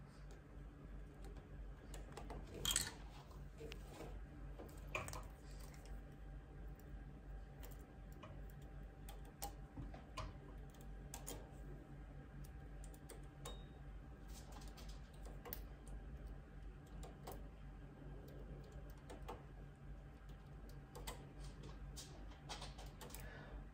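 Scattered light clicks of a hand tool and knitting-machine needles as jacquard floats are hooked up onto the needles by hand. The clicks come irregularly, a little louder about 3 s and 5 s in, over a low steady hum.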